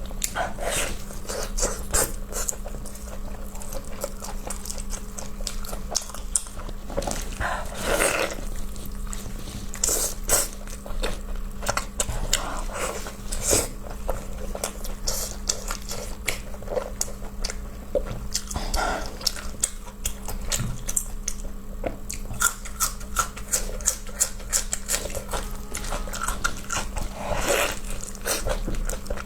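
Close-miked eating: wet chewing, smacking and biting of soft pork tripe stuffed with pig brain, as a string of irregular clicks and short squelches. A steady low hum runs underneath.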